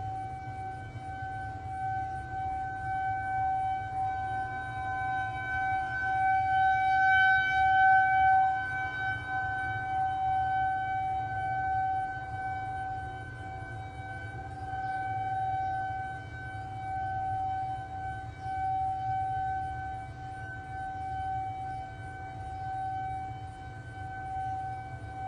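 Federal Signal 2001-SRNB rotating outdoor warning siren sounding the steady Alert signal: one unwavering pitch that swells and fades as the siren's horn turns toward and away.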